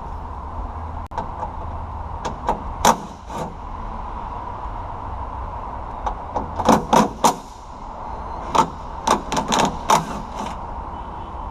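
Scattered sharp metallic clicks and clinks of hand tools working on the window regulator bolts inside a car door, coming in three short clusters over a steady background hum.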